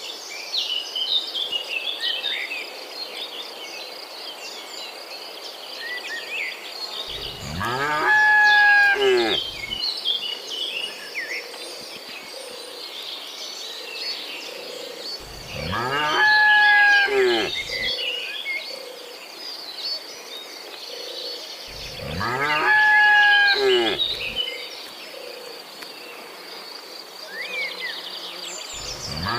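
Cattle mooing: three long, loud moos about seven seconds apart, with a steady high insect buzz between them.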